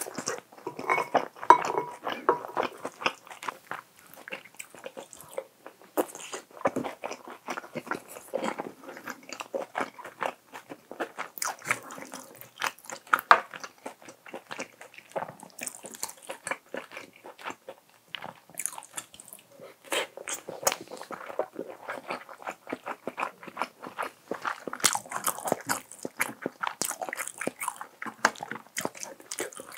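Close-miked chewing of food, with dense, irregular crunching and mouth clicks throughout.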